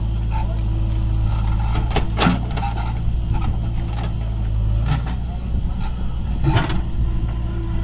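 Diesel engine of a JCB backhoe loader running steadily under load as it digs, with three sharp knocks from the bucket and arm working the soil, about two, five and six and a half seconds in.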